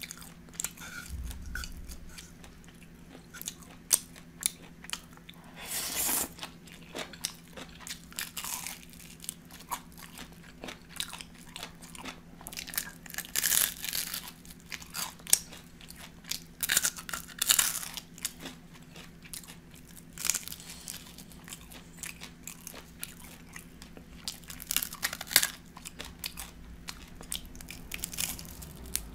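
Close-miked eating of oven-fried chicken wings: irregular crisp crunches as the skin is bitten, with wet chewing between them. A faint steady hum runs underneath.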